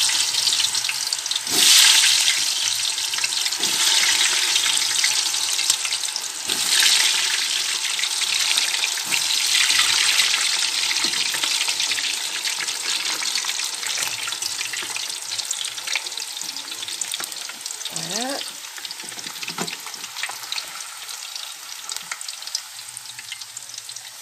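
Raw potato cubes deep-frying in hot oil in an electric deep fryer, a dense sizzle with fine crackling. It swells twice in the first seven seconds, then slowly dies down as the moisture boils off.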